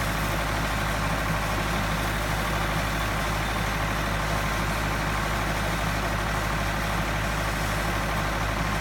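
Steady, unchanging drone of the high-pressure pump engine feeding a water jet that washes substation insulators, with a low hum and an even hiss of spray over it.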